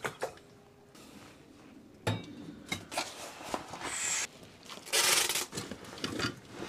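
Handling noises as a large sheet of white fabric is hung and fixed to the wall: scattered clicks and knocks, then rustling of the fabric, loudest for about half a second around five seconds in.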